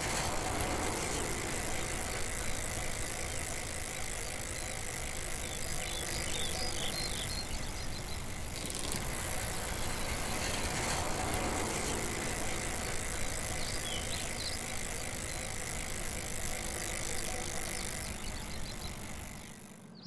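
Steady outdoor background noise, a low hum and hiss, with a few faint high chirps now and then; it fades out near the end.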